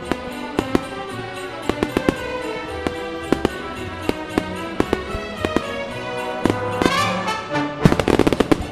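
Fireworks going off over a musical soundtrack: scattered sharp bangs through the music, then a rapid cluster of bangs about eight seconds in.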